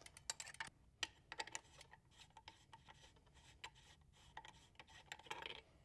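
Faint scattered clicks and light metal-on-metal rubbing as a clipless pedal's spindle is loosened from a bicycle crank arm with an Allen key and spun off its threads by hand.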